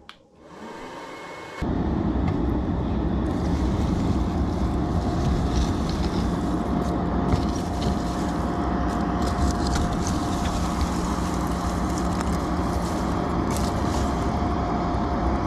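Wood fire burning hard in the firebox of a maple syrup evaporator, sparks rising off the coals. It sets in suddenly as a loud, steady rush, and a thin steady whine runs under it for much of the time.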